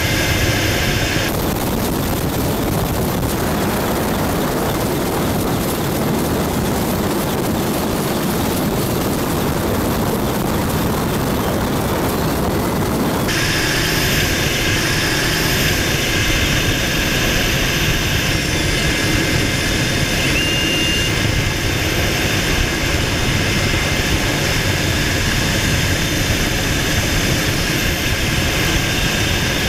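AgustaWestland EH-101 Merlin helicopter in a steady hover, its turbine engines and rotor running loudly as heard from inside the cabin at the open door. About 13 seconds in, a brighter, higher hiss joins the steady noise.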